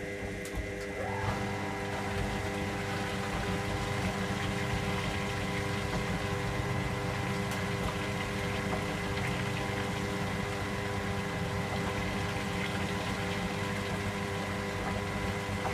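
Electra AWF683 washing machine with water flowing through it and a steady hum. The hum grows fuller about a second in and then holds steady.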